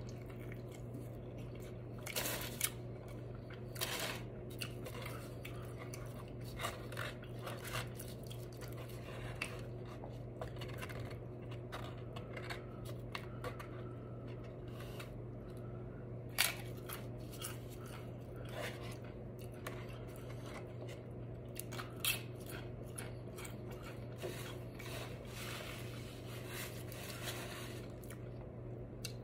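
Close-up eating sounds of a Chipotle burrito being bitten and chewed: wet, squishy chewing with scattered crackles and a few sharper crunches, over a low steady hum.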